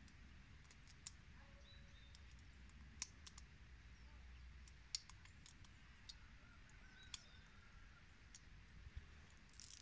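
9 mm P.A.K. blank cartridges being pressed one at a time into a Zoraki 2918-T blank pistol's magazine. About seven sharp clicks come a second or two apart over a near-silent background.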